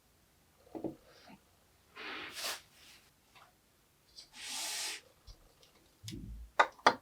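Kinetic sand and small plastic toys being handled: a few short scraping, hissing sounds, then a quick run of clicks and taps near the end.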